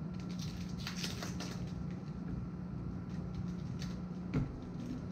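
Fortress 1-gallon ultra-quiet oil-free air compressor running with a steady low hum, so quiet it is called "stupid quiet". Light rustling and clicks of hands handling fittings sit over it, with a small knock about four seconds in.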